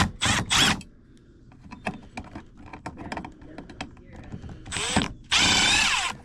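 Clicks and short scrapes of tools and hardware being handled, then near the end a power driver runs briefly, its pitch wavering, as a cover on the furnace switch is worked open.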